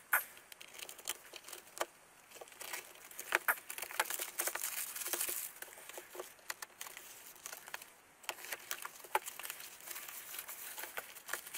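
A parcel being opened by hand: its packaging crinkling and tearing in irregular bursts, with scattered small clicks and taps.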